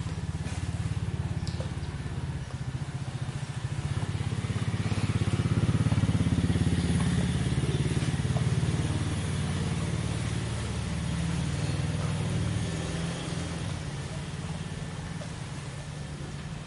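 An engine running steadily with a low, rapidly pulsing rumble. It grows louder around the middle, then eases off.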